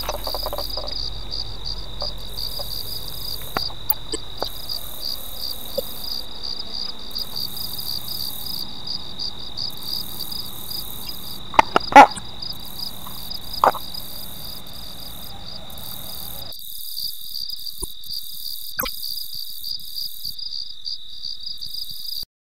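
Insects trilling steadily in a fast, pulsing high-pitched chorus. A few sharp knocks come near the middle, the loudest about halfway through, and the sound cuts off suddenly near the end.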